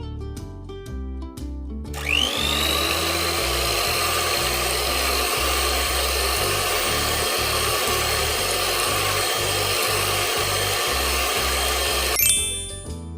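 Electric kitchen mixer running for about ten seconds, starting about two seconds in with a whine that rises as the motor spins up, then holds steady until it cuts off. Background music plays underneath.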